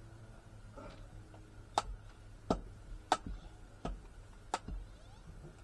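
A handful of sharp clicks and light knocks, about five, spaced a little under a second apart, from equipment being handled.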